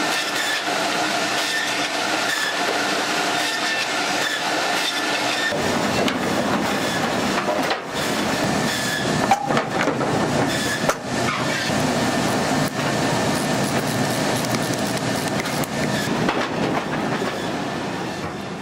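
Woodworking machinery running continuously with steady whining tones and a few sharp knocks; the sound changes character about five and a half seconds in and fades out near the end.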